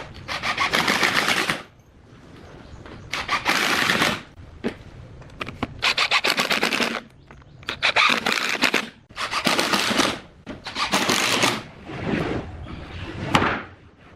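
A woodworking power tool run in repeated bursts of about a second each, about eight in all, each a rapid rattle, with short pauses between them.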